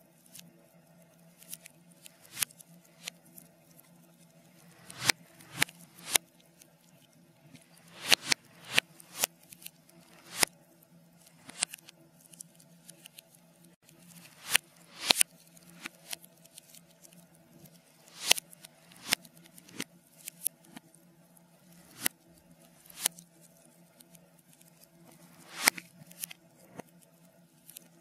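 Wood fire in a fireplace crackling and popping, played in reverse: irregular sharp pops, a few loud ones every second or two, each swelling in and stopping abruptly, over a steady low hum.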